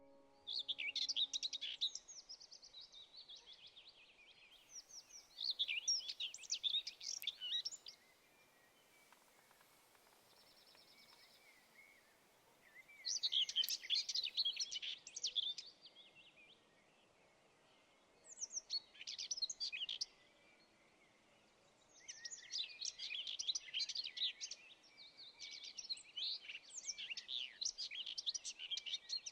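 A songbird singing high, rapid warbling phrases of about two seconds each, about six times, with pauses of a few seconds between them.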